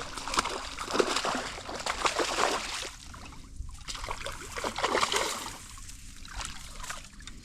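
Pond water sloshing and splashing in uneven surges.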